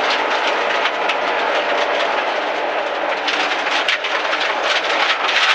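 Rally car driven hard on a gravel stage, heard from inside the cabin: a steady rush of engine and tyres on gravel, with many small ticks of loose stones striking the car's underside.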